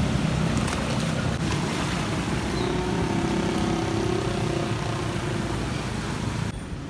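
A manual motorbike's engine running steadily as it tries to cross deep floodwater, under a broad hiss that cuts off suddenly near the end.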